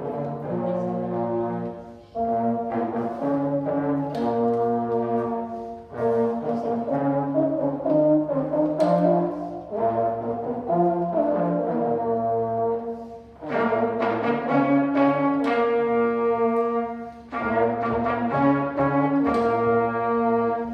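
Children's brass quartet of two trumpets, a trombone and a French horn playing a tune together in held notes, with short breaks between phrases every few seconds.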